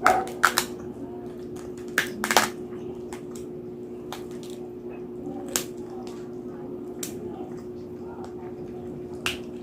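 Close-up mukbang eating sounds of crispy roasted pig's head (lechon): sharp crunches of the crackling skin, loudest at the start and about two seconds in, with fainter crunches later and wet chewing between, over a steady low hum.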